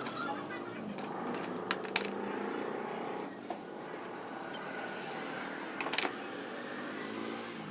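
A few sharp metallic clicks and clinks of small engine parts and hand tools being handled during assembly, against a steady background hum.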